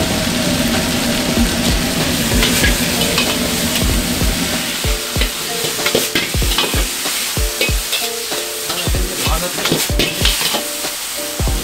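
Beef stir-frying in oyster sauce in a wok over high heat: a continuous sizzle with a steady hum underneath. The ladle knocks and scrapes against the wok as it is tossed, with the strikes coming thick and fast from about halfway through.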